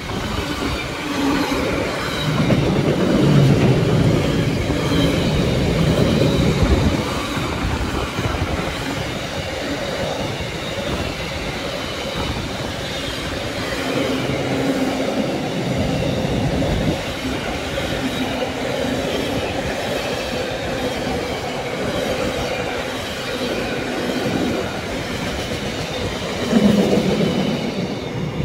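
Class 70 diesel locomotive passing with a freight train. The engine's low rumble is loudest a few seconds in, followed by the steady running noise of the wagons' wheels on the track.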